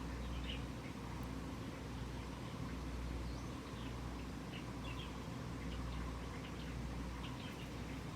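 A cat purring as it is massaged: a steady low rumble that swells and dips every second or two, with faint short high chirps here and there.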